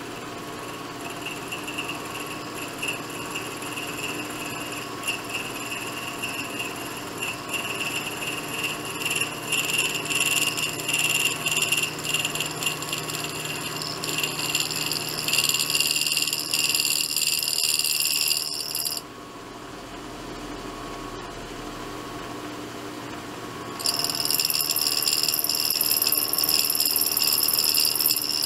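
End mill on a milling machine cutting a metal part on a light 20-thousandths depth pass, with a loud, high-pitched ringing squeal from the cut over the machine's running. The squeal stops about 19 seconds in and comes back louder about five seconds later.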